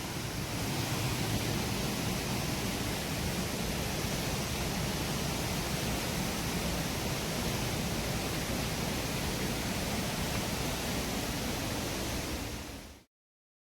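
Steady rushing of a waterfall in a gorge, an even roar of falling water that cuts off suddenly near the end.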